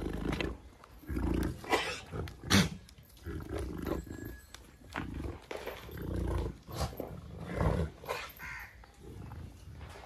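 Jamunapari breeding buck giving a series of low, rough grunts.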